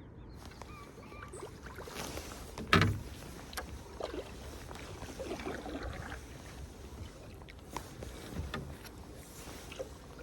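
Small knocks and water sloshing around a fishing kayak, with one louder hollow knock on the hull about three seconds in.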